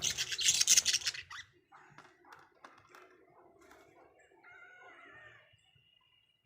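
Budgerigars squabbling: a loud, harsh screech over the first second and a half, then quieter chattering, with a short warble a little before the end.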